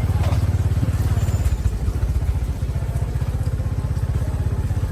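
Motorcycle engine running steadily, with a fast, even low pulsing.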